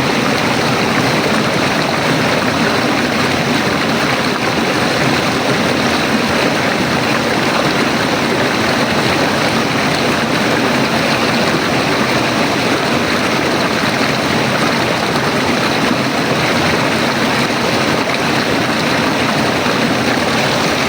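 River water flowing, a steady continuous rushing.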